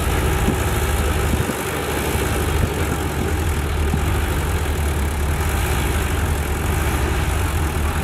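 Crawler bulldozer diesel engines running steadily at low revs, a continuous low rumble. The deepest part of the rumble dips briefly about one and a half seconds in.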